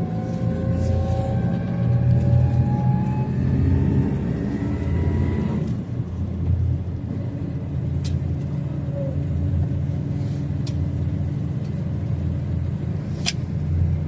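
Road noise of a moving car heard from inside: a steady low rumble of engine and tyres, with a faint whine rising slowly in pitch as the car speeds up that stops about six seconds in. A few faint clicks later on.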